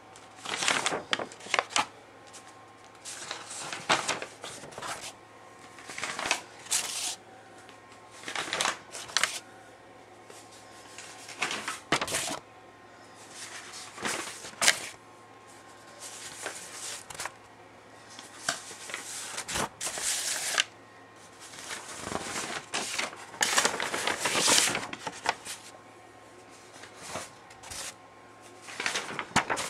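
Irregular rustling and scuffing noises, a few every couple of seconds, over a faint steady low hum: handling noise from a handheld camera being moved close over canvases.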